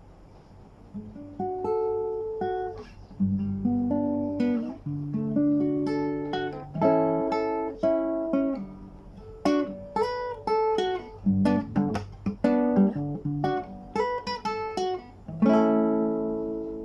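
Acoustic guitar playing an instrumental introduction of plucked notes and strummed chords, starting about a second in; the last chord rings on and fades near the end.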